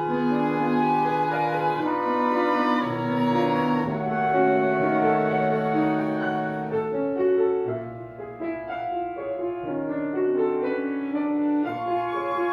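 Woodwind quintet playing classical chamber music: held chords with moving inner lines from horn, clarinet and the other winds. The texture thins and softens for a few seconds past the middle, then the full ensemble comes back in.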